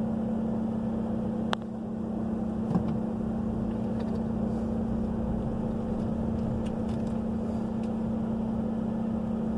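Pickup truck engine running steadily, heard from inside the cab as a constant low hum, with a single sharp click about a second and a half in.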